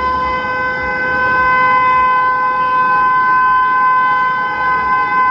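WAP-7 electric locomotive's twin-tone air horn held on its higher note as one long, steady, loud blast.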